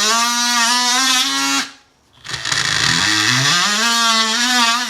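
Handheld electric power tool working into a soft breeze block wall, its motor pitch sagging and rising under load. It stops briefly about two seconds in, then spins back up.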